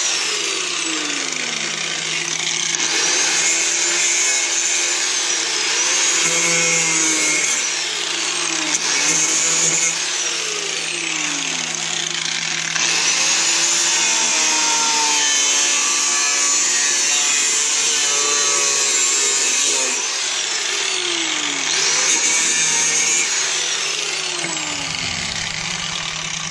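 Corded angle grinder cutting and grinding rusted steel sheet metal, its whine dipping and rising again several times as the disc is pressed into the metal and eased off, while the rot is cut out of a truck's cab corner. It winds down near the end.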